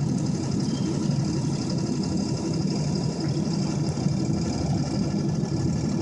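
2002 Ford F-250 pickup heard from inside the cab while driving: a steady engine drone with road noise.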